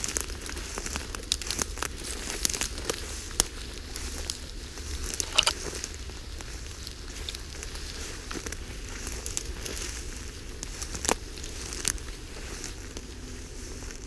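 Tall dry grass and brush rustling and crackling as a person and a wolf push through it, with sharp snaps of stems and twigs scattered throughout. The loudest snaps come about five seconds in and about eleven seconds in.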